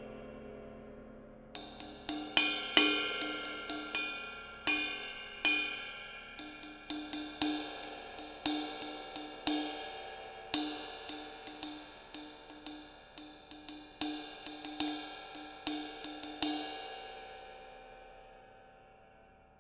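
Handmade B20 bronze cymbal struck repeatedly in an uneven pattern, about two strikes a second, each ringing with a shimmering wash. It starts a second or so in over the fading ring of an earlier strike, and is left to ring out and fade slowly near the end.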